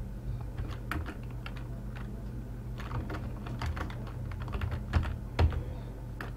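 Computer keyboard being typed on in irregular clicks, with a couple of louder keystrokes near the end, over a steady low electrical hum.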